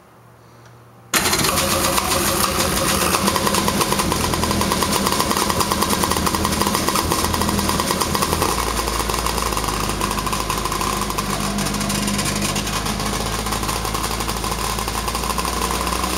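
Sharps Marine 1010cc big-bore Polaris Pro 785 two-stroke engine catching suddenly about a second in, then running steadily and loud on its first start after a complete rebuild. About halfway through, a deeper steady note comes into the running.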